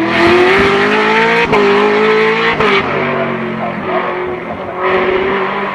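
Race car engine accelerating hard, its note rising and then dropping at two quick upshifts about a second and a half and two and a half seconds in, then running at a steadier pitch.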